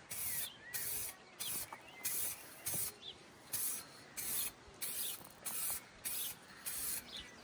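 Aerosol can of clear coat lacquer spraying in short repeated hissing bursts, about one to two a second, as the lacquer is sprayed onto a headlight lens.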